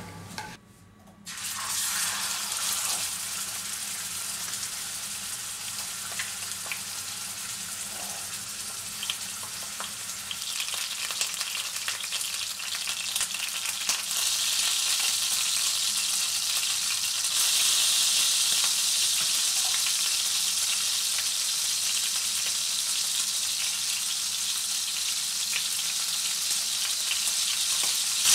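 Beef entrecote steak sizzling in hot oil in a stainless steel frying pan: a steady frying hiss with small crackles, starting about a second in and growing louder twice along the way.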